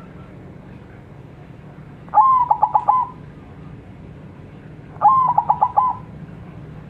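White zebra dove (perkutut) singing its full song twice, about three seconds apart. Each phrase is a rising coo that breaks into a quick run of about five short staccato notes.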